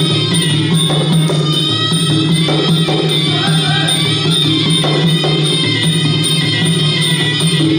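Traditional Kun Khmer boxing music: a reed pipe playing a sustained melody over drums and small hand cymbals that keep a fast, steady beat of about three strokes a second.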